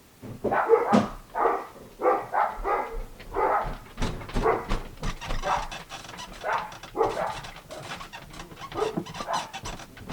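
Pet dogs barking repeatedly from upstairs, about one or two barks a second. They are raising the alarm at someone locked out and trying to get in at the door.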